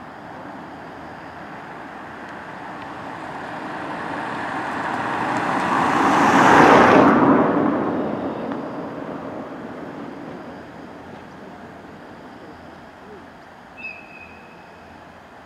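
A vehicle passing close by: a steady rushing noise builds for several seconds, peaks about seven seconds in, and fades away.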